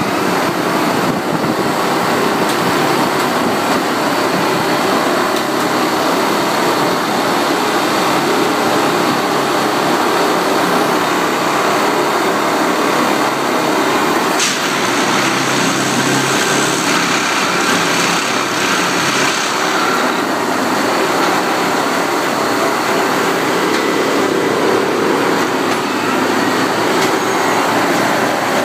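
Railway track tamping machine working on ballasted track: a loud, steady mechanical din, with one sharp click about halfway through.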